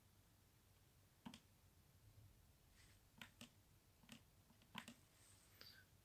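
Faint, irregular clicks of a laptop touchpad, about seven of them, against near silence.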